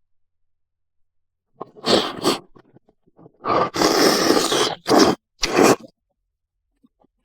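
Close-miked eating sounds from a person's mouth: four loud, noisy bursts, the longest about a second and a half, starting nearly two seconds in.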